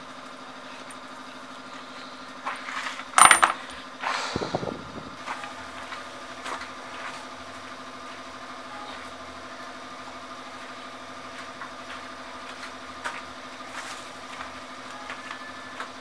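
Small steel bolts dropping onto hard ground: a sharp metallic clink with a brief ring about three seconds in, a second clatter a second later, then a few light taps. A steady low hum runs underneath.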